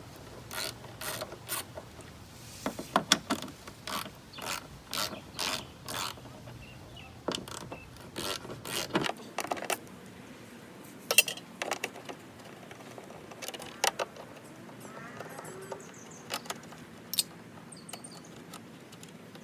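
Ratchet wrench clicking while loosening 10 mm bolts, in short runs of clicks with pauses between.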